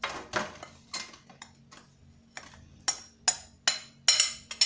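A metal spoon scraping and then tapping against a glass bowl to knock out a biscuit-and-butter crumb mix. It starts with a scrape of crumbs, and from about three seconds in there is a quick run of sharp taps, each with a short high ring of glass.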